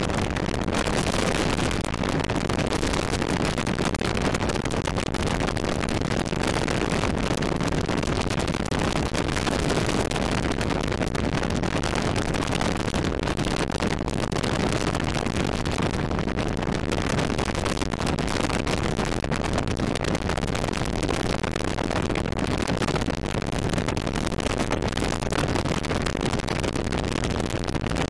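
Magni M16 autogyro in cruise flight heard from its open cockpit: a steady engine drone mixed with the rush of wind and rotor noise over the microphone, unchanging throughout.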